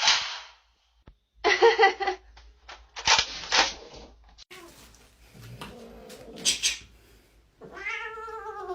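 Domestic cat vocalising: a few short rough noisy bursts early on, then a drawn-out meow that rises and falls in pitch near the end.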